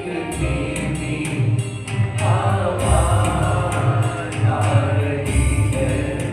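Hindi Christian worship song: voices singing over band accompaniment with a steady beat of high, tambourine-like strikes.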